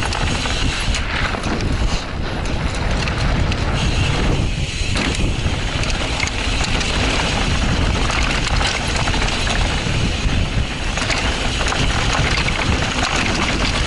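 Mountain bike descending fast on a loose dirt trail: steady wind noise on the microphone, with the tyres on loose dirt and the bike rattling and clattering over bumps.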